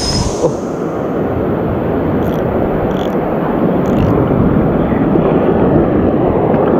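Surf washing and churning right around the microphone: a steady, muffled rush of water.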